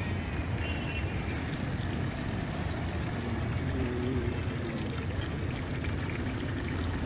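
Medu vada deep-frying in a wok of hot oil on a gas burner: a steady sizzling hiss that grows brighter about a second in, over a constant low rumble.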